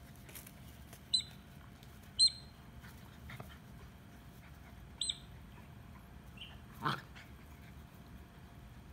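A squeaky dog toy squeaking in short single squeaks, three times in the first five seconds, as the big dog bites on it. About seven seconds in comes one brief, low sound from a dog.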